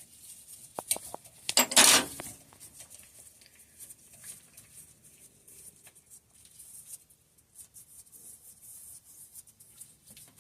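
Metal clinks and light handling ticks of tools and a rear-shock body while its loose, under-torqued head is unscrewed by hand, with one short, loud metallic clatter about two seconds in.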